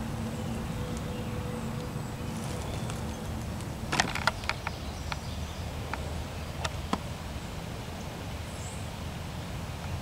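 Outdoor ambience: a steady low rumble with a faint hum that fades out about a third of the way in, and a quick cluster of sharp clicks about four seconds in, with a few more near seven seconds.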